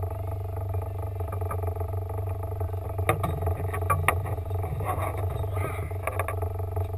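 Boat's outboard motor running steadily with a low hum. From about three seconds in there are several sharp knocks and clatters of gear.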